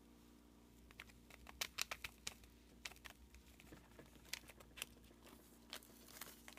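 Faint crinkling of a plastic bag and scattered light ticks as loose chunky nail glitter is poured from it into a small jar.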